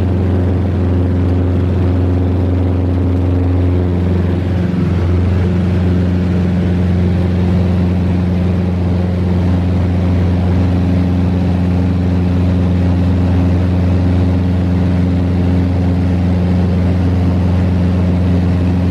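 Cessna 172RG's four-cylinder Lycoming O-360 engine and propeller at take-off power, heard inside the cabin as a loud, steady drone through the ground roll and climb-out of a touch-and-go. Its tone shifts slightly about four to five seconds in.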